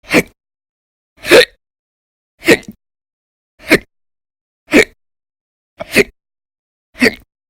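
A woman's loud, violent hiccups, seven of them at an even pace of about one every 1.2 seconds, each a short, sharp gulp.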